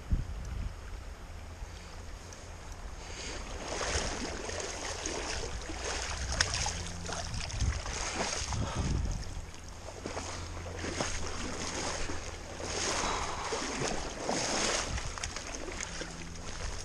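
Water splashing and sloshing in irregular bursts as a hooked steelhead is played in a shallow creek, over a low wind rumble on the microphone.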